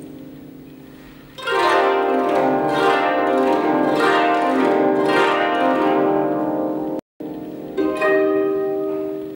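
Koto ensemble with a seventeen-string bass koto (jūshichi-gen) playing. A ringing chord dies away, then about a second and a half in a loud flurry of plucked notes and quick sweeps across the strings begins. The sound cuts out for a moment, and near the end a strong chord is struck and rings down.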